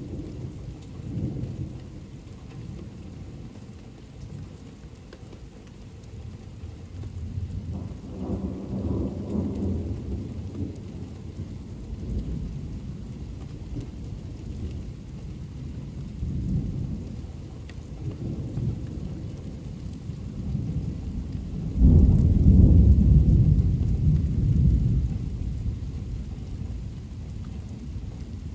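Thunder rolling over steady rain. Low rumbles swell and fade near the start and about eight seconds in; the loudest peal breaks suddenly about twenty-two seconds in and rolls off over a few seconds.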